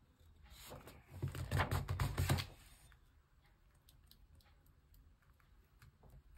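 A picture book being opened by hand: about half a second in, some two seconds of paper rustling and quick light taps as the cover is turned and the page pressed flat.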